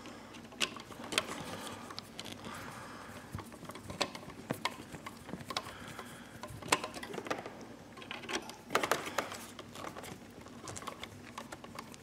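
Screwdriver loosening the side terminal screws of a duplex wall outlet to free the wires: irregular small metallic clicks and ticks of the screw, tool and wires being handled.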